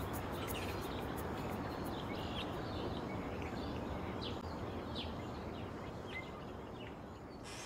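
Steady background ambience with faint bird chirps scattered through it; the high hiss drops away near the end.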